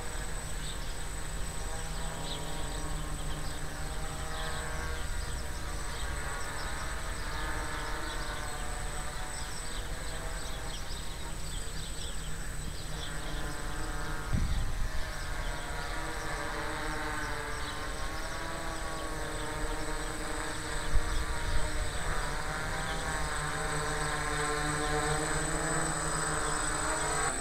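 Quadcopter's electric motors and propellers buzzing in flight, the pitch wavering up and down as the motors keep correcting. This is a DJI Naza-controlled multirotor circling in GPS mode: the toilet-bowl drift caused by uncompensated magnetic declination. Low rumble, likely wind on the microphone, runs underneath.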